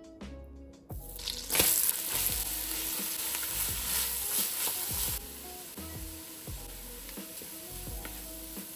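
Diced carrots, celery and onion sizzling in melted butter in a Dutch oven as they are stirred with a wooden spoon. The sizzle starts about a second in, is loudest for the next four seconds, then goes quieter. Background music with a beat plays underneath.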